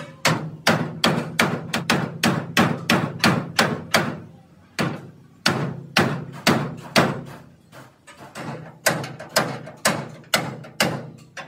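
Hammer blows on the steel roof of a damaged excavator cabin, struck from inside to beat out the dents. The blows come fast, about three to four a second, in three runs with short pauses, each with a brief metallic ring.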